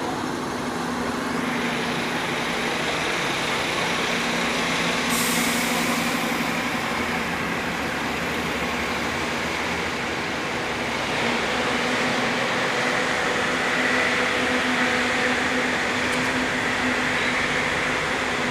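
City street traffic with double-decker buses: a steady rumble and hum of engines and tyres, with a short burst of hiss about five seconds in.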